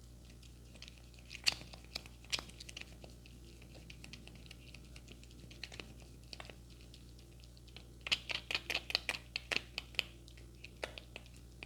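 Scattered sharp clicks and taps, with a quick run of them about eight seconds in, over a faint steady low hum.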